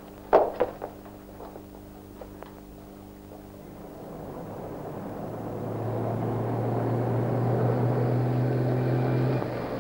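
Street traffic fading in: motor vehicles running, with a steady low engine drone that grows louder over several seconds and drops near the end. A few sharp knocks come in the first second.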